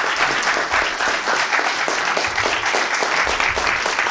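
Audience in a lecture hall applauding steadily, a dense clatter of many hands clapping at once.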